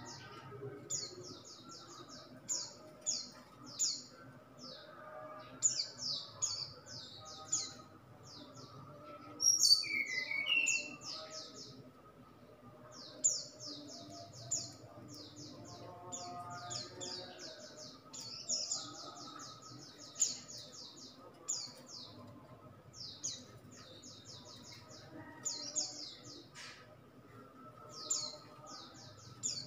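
A caged brown-chested jungle flycatcher (sikatan rimba dada coklat) sings in short, rapid bursts of high notes, repeated every second or so. About ten seconds in, there is one louder call that drops lower in pitch.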